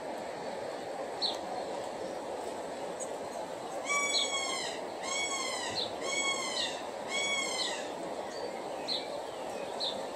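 Kea calling four times in a row about a second apart, starting about four seconds in, each call under a second long with a pitch that rises and then falls. Short high chirps of small birds and a steady background hiss sound throughout.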